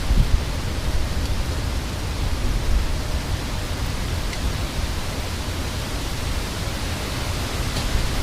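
Heavy thunderstorm rain and wind: a steady, even rush of noise with no distinct thunderclap.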